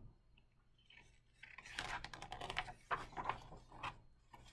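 Paper rustling and scratching as a picture-book page is turned and smoothed flat by hand, starting about a second and a half in as a string of soft irregular rustles and small clicks.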